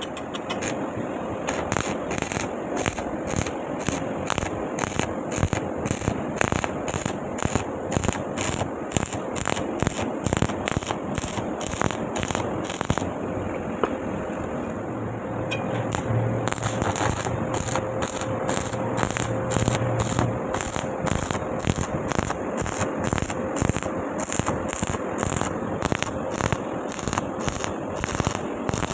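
Electric arc welding on a steel pipe joint: a steady crackling arc with a regular pulsing about two to three times a second, which eases for a few seconds in the middle.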